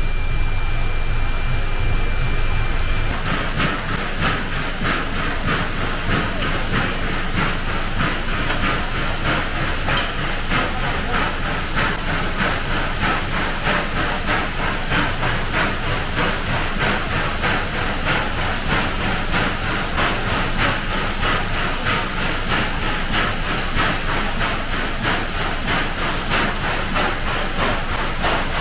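C11-class steam locomotive under steam in its shed: a continuous hiss of steam with a fast fluttering pulse over a low rumble. For the first three seconds a steady high whine sits over the rumble before the hiss takes over.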